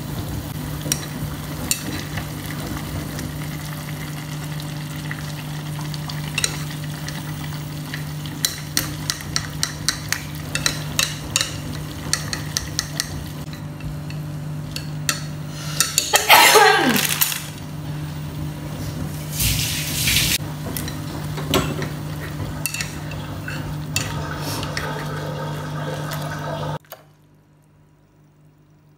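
Chopsticks stirring noodles in a saucepan of simmering soup, clicking against the pan many times in quick succession, over a steady low hum. A louder swish of liquid comes about two-thirds through, and the background cuts off abruptly near the end.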